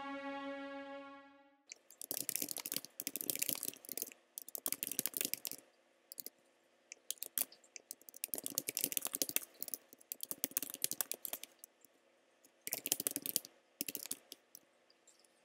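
A sustained musical chord fades out in the first second and a half, then typing on a computer keyboard follows: runs of rapid key clicks broken by short pauses.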